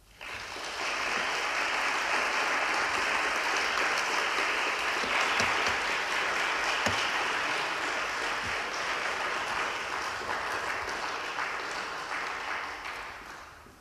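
Audience applauding: a dense, steady round of clapping that builds within the first second and dies away over the last couple of seconds.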